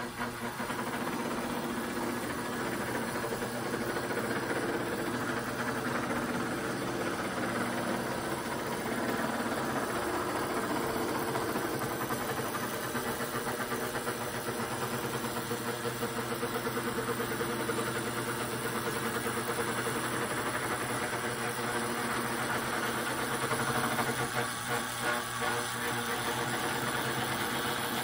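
Lionel Pennsylvania GG1 toy electric locomotive running with a freight train on three-rail track: a steady mechanical hum of its motor and gearing, with the metal wheels rumbling on the rails. There is no horn or sound effects, and the sound picks up about half a second in.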